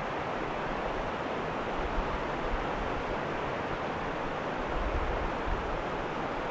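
Small river pouring over a low rock ledge: a steady rush of falling and churning water.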